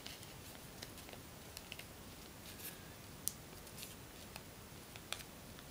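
Sheet of origami paper crinkling and creasing under the fingers during a petal fold: faint, scattered soft clicks and crackles, one a little sharper about three seconds in.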